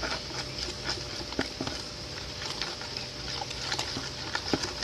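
Thickening slime being stirred in a container, with many small squelches and clicks of the stirrer.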